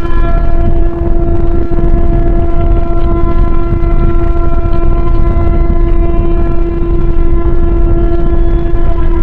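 A steady, buzzy alarm tone held at one pitch, with a loud low rumble underneath.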